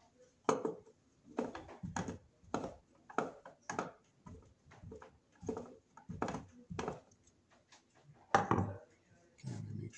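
Irregular sharp knocks and clicks, roughly one or two a second with the loudest near the end, as an electrical panel's cover is worked into place by hand.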